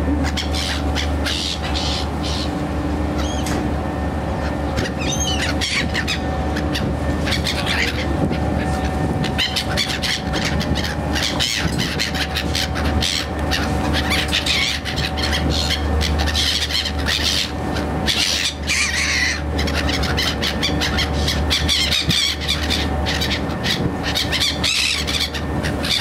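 A flock of black-headed gulls calling over and over, many short high cries overlapping, over a steady low drone.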